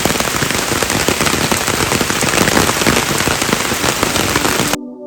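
Heavy rain falling, with dense drops hitting a surface. It cuts off suddenly near the end as music starts.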